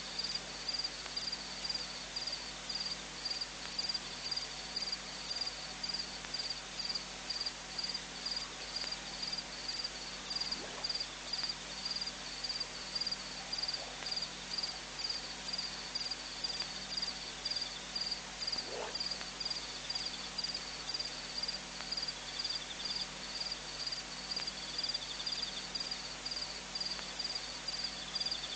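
An insect chirping steadily in a high, even rhythm, about two chirps a second, with a few faint short lower calls in the background.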